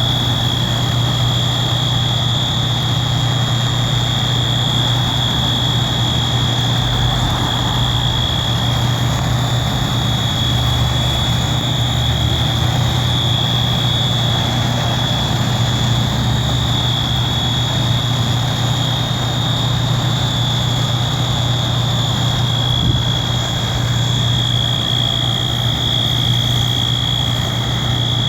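A building's Wheelock MT fire alarm horn sounding one continuous high-pitched tone without pause, over the steady low rumble of diesel fire engines idling.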